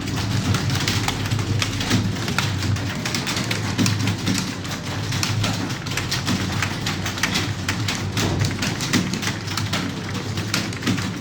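Computer keyboards being typed on by several people at once: a dense, irregular clatter of keystrokes over a steady low hum.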